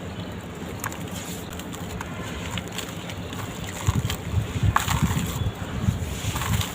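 Red dirt crumbling, with scattered crisp crackles over a steady low hiss. From about four seconds in come a run of soft, low thuds.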